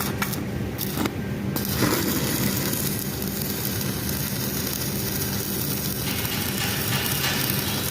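Electric arc welding: a steady crackling hiss with a low buzz underneath, after a few sharp clicks near the start.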